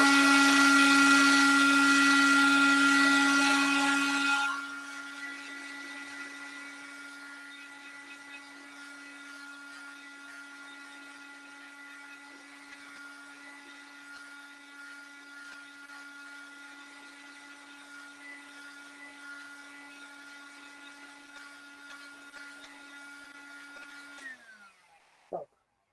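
A small electric motor running at a steady pitch. It is loud with a hiss for the first four seconds or so, then runs on much quieter, and winds down and stops near the end.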